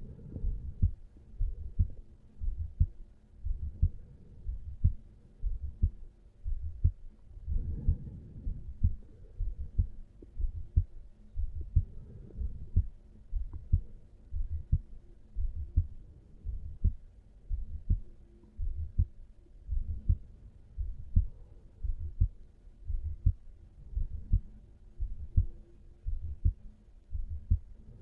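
A human heartbeat heard over the mitral valve area (the heart's apex): a steady lub-dub, each beat a pair of low thumps, about one beat a second.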